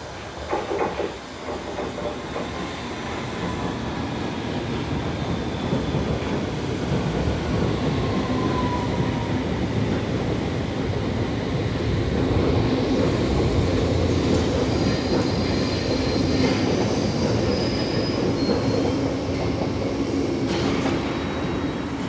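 London Underground trains running at the platform: wheels on rail and traction motors build to a steady, loud rumble with a low motor hum. Thin high wheel squeals come in over the second half.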